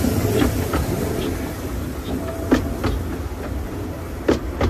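A 15-inch gauge steam train passing close by on the adjacent track: the locomotive and then its coaches roll past with a steady low rumble and several sharp clacks of wheels over rail joints, the loudest in the second half.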